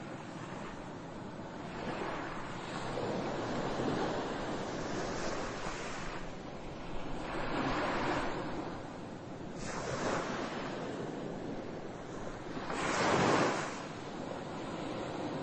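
Ocean surf: a rushing noise of waves that swells and fades every few seconds, the loudest wave about 13 seconds in.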